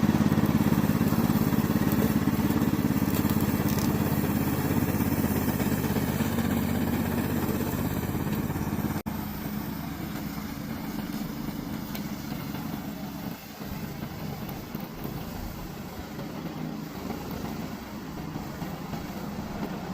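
Remote-control tracked lawn mower's engine running steadily with a low hum. It starts suddenly, is louder in the first half, breaks off abruptly about nine seconds in and carries on quieter.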